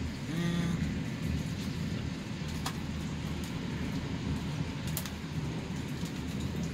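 Steady low outdoor rumble during a thunderstorm, with a short pitched tone about half a second in and a few sharp clicks later.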